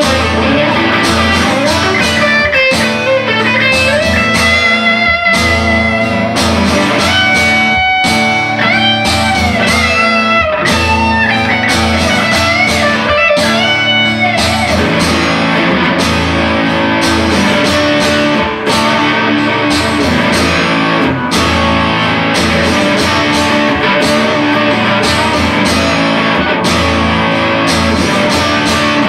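Electric guitar playing an instrumental passage: a steady picked chord rhythm, with a lead line of bent, wavering notes in the first half, then settling back into chords.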